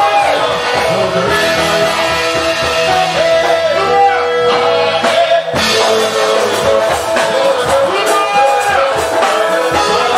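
Loud music with a singer's voice over it, played through a stage sound system. The sound cuts out for an instant about five and a half seconds in.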